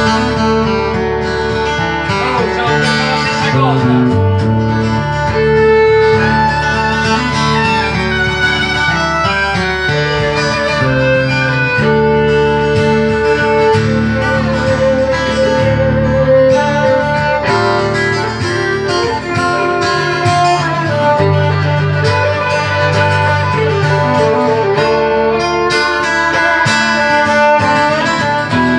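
Fiddle and acoustic guitar playing a tune together, the bowed fiddle line over the guitar's accompaniment.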